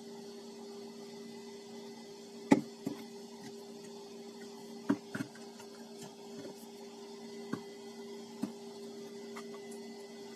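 A few light knocks and clicks as the opened Bluetooth speaker's parts are handled, the loudest about two and a half seconds in, over a steady low hum.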